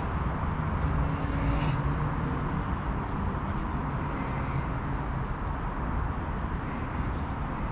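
Steady outdoor city ambience: a continuous low hum of distant traffic, with no distinct events.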